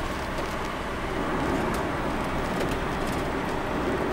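Motorhome driving along a road, heard from inside the cab: a steady hum of engine and tyre noise.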